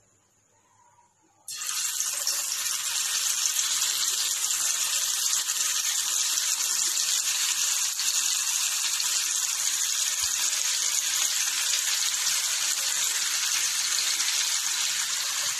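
Marinated anchovies (nethili) sizzling as they shallow-fry in hot oil in a black kadai. The sizzle starts suddenly about a second and a half in and then holds steady and loud.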